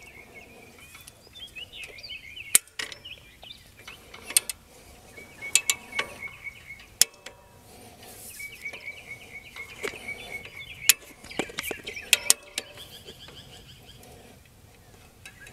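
Come-along ratchet being let off to release tension on a chain-link fence: separate sharp metallic clicks every second or two, with birds chirping.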